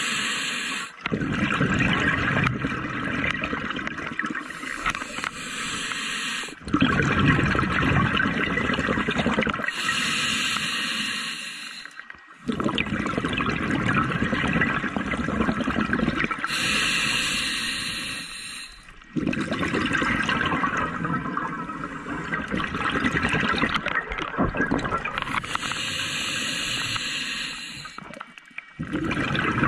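Scuba regulator breathing underwater: a short hiss on each inhalation, then a long rush of exhaled bubbles, about five breaths in slow succession.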